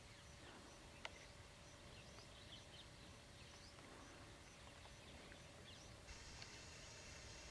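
Near silence: a few faint, scattered chirps of small birds over a steady hiss, with one soft click about a second in.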